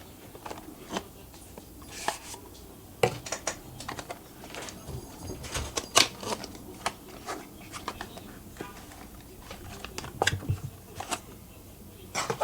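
Irregular clicks and taps of a phone box and its accessories being handled and unpacked, with a sharper click about six seconds in and a quick run of clicks near the end.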